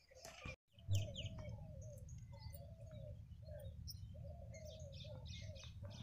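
Birds chirping faintly, with a run of short, repeated low calls and scattered higher chirps. About a second in there is a single knock, followed by a low steady rumble underneath.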